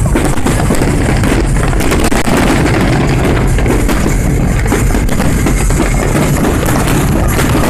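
Fireworks bursting and crackling in a dense, continuous barrage, loud throughout.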